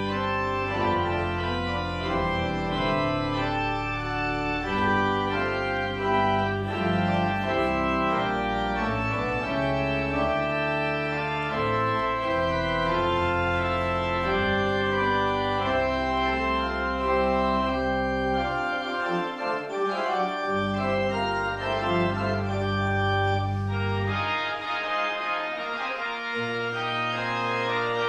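Church organ playing sustained chords over a moving bass line. The lowest bass notes drop out briefly about two-thirds of the way in, and again near the end.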